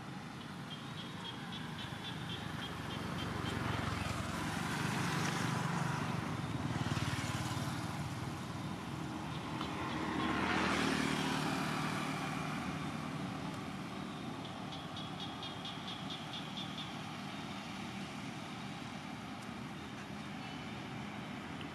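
Road traffic passing: two vehicles, motorbikes or cars, go by one after the other, each swelling and fading, loudest about five and eleven seconds in. A faint, rapidly pulsing high chirping is heard near the start and again about fifteen seconds in.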